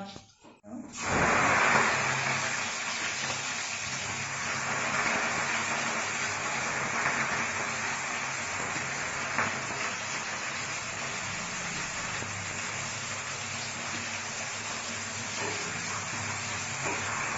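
Hot oil in a cooking pan sizzling as ingredients go in about a second in: a sudden loud frying hiss that settles into a steady sizzle.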